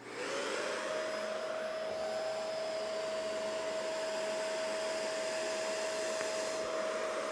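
Shark Rotator Powered Lift-Away vacuum switched on and running with its TruePet mini motorized brush on a fabric cushion. The motor's whine rises as it spins up and then holds one steady pitch over a rushing of air. At the very end it starts to fall in pitch as the vacuum is switched off and winds down.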